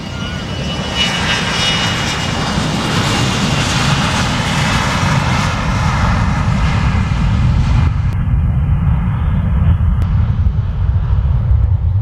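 Fokker 100 jet airliner's two rear-mounted Rolls-Royce Tay turbofans at takeoff power during the takeoff roll. A high engine whine in the first few seconds gives way to a broad rush and a low rumble that grows louder toward the end.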